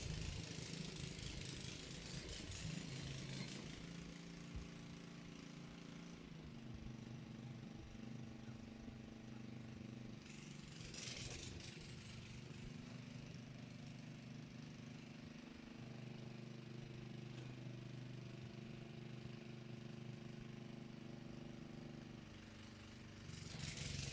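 Small petrol engine of a Loncin 2.3 hp motor hoe (mini tiller) running while tilling between vine rows, its pitch shifting a few times as the load changes. Short bursts of hiss come near the start, about eleven seconds in, and at the end.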